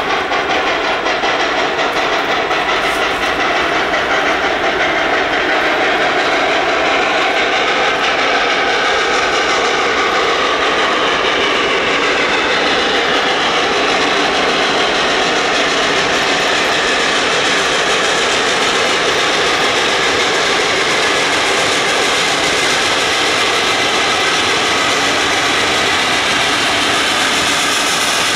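Baldwin 2-8-0 Consolidation steam locomotive No. 734 working hard as it approaches, its exhaust a loud, steady rush that builds a little over the first few seconds.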